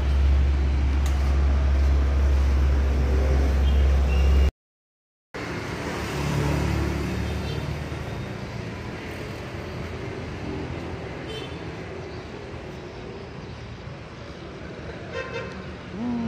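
Motor traffic running past: a loud steady deep rumble that cuts out abruptly about four and a half seconds in, then a fainter, even traffic noise that slowly fades.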